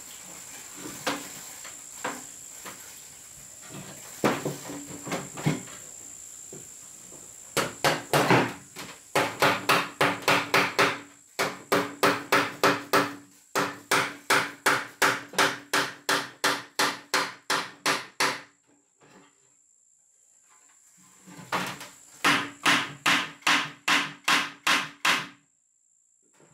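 Hammer blows on wood, struck steadily about twice a second in a run of some ten seconds, then after a short pause a second run of about four seconds; a few scattered knocks come before the first run.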